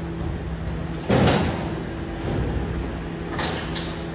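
Garbage truck at work: a steady mechanical hum breaks off with a sudden loud clatter about a second in, and two short sharp hisses come near the end.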